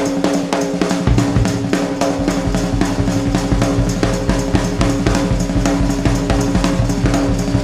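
Background music with a steady drum-kit beat over sustained tones; low bass notes come in about a second in.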